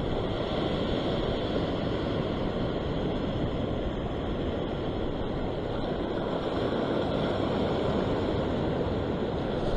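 Steady rush of sea surf washing over a rock platform, with wind on the microphone.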